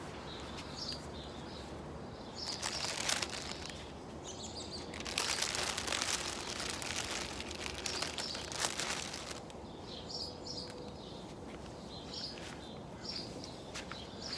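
A clear plastic bag crinkling as it is handled, in a short burst and then a longer one of a few seconds in the middle, while small birds chirp now and then.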